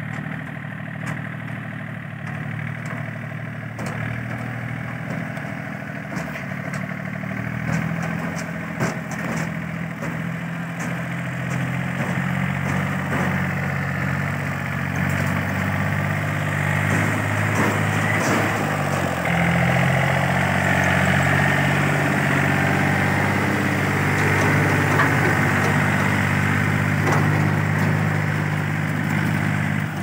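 Small farm tractor's diesel engine running as it tows a loaded trailer down a dirt track, growing louder as it approaches, its engine note shifting a few times.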